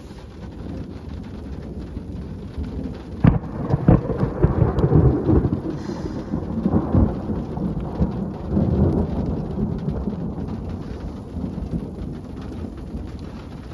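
Thunder: a sharp crack about three seconds in, then a long rolling rumble that swells again and slowly fades, with rain falling throughout.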